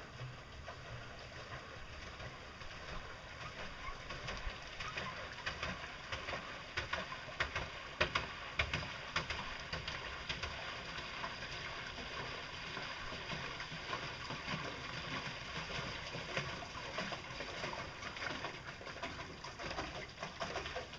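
Paddle wheel of a homemade pedal boat churning water, slowly growing louder as the boat approaches, with a scatter of sharp clicks around the middle.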